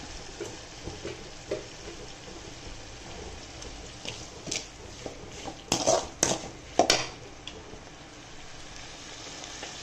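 Perforated steel ladle stirring shallots, chillies and herbs frying in oil in a metal kadai, over a steady low sizzle. Past the middle come three sharp scrapes and knocks of the ladle against the pan.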